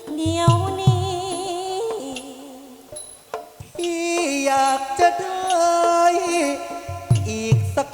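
Thai traditional ensemble music accompanying a likay performance: a wavering, ornamented melody line, with a few low drum strokes about half a second in and again near the end.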